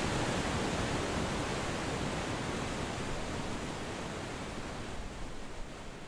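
Androscoggin River in flood after a heavy storm, its whitewater rushing with a steady, even roar that slowly fades away toward the end.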